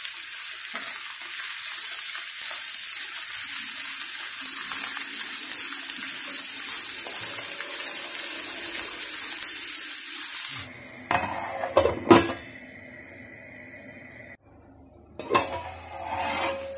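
Diced vegetables sizzling in hot oil in a frying pan as they are stirred, a steady hiss. About ten seconds in the sizzle stops, and a few sharp metal clanks of the pan and its lid follow.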